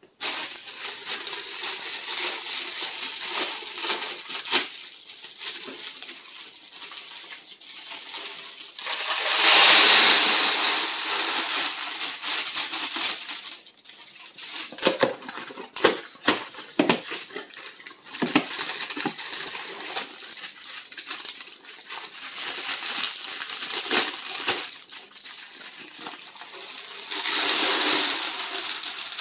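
Mylar and plastic bags rustling and crinkling while dry rolled oats are handled. The oats are poured from a plastic bag into a Mylar storage bag with a rushing sound near the end, and there is a similar loud rush about ten seconds in.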